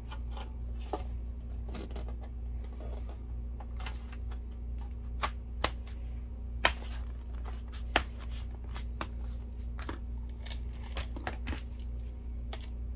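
Plastic bottom shell of an HP EliteBook 450 G4 laptop being pressed back onto the chassis, its clips snapping into place with a run of irregular sharp clicks. The loudest are a few single snaps around the middle.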